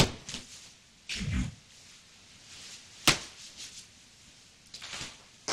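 Quiet room broken by a sharp click, a short low thump about a second in, and another sharp click about three seconds in, with faint handling noises after it.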